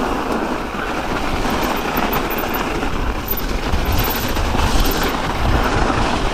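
Specialized Kenevo SL e-mountain bike rolling down a snowy trail: a steady rumble of tyres over snow and frozen ground, with the bike rattling over the bumps.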